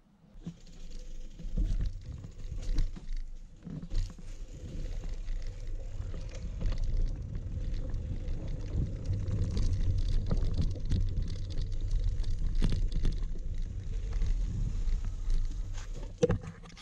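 Wind buffeting the microphone of a camera carried outdoors: an uneven low rumble with a few short knocks from handling.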